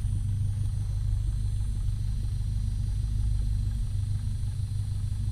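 Single-engine Cessna's piston engine and propeller running steadily at idle, a low even drone heard inside the cabin.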